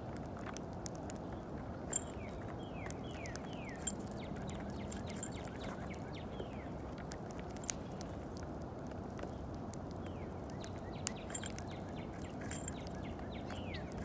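Sparrows feeding on peanuts on snow: sharp pecking clicks, with a few louder taps, and two short runs of quick falling chirps, one about two seconds in and one near the end, over a steady low background noise.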